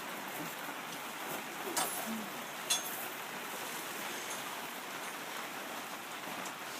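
A steady rushing hiss, with two short sharp clicks a little under a second apart, about two seconds in.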